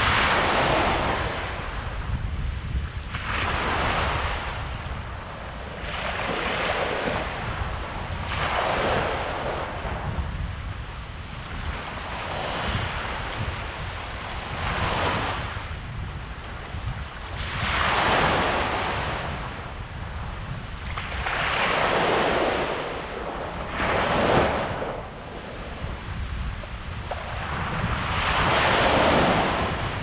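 Small waves breaking and washing up a sandy beach, a rush of surf swelling and fading every three to four seconds over a steady low rumble.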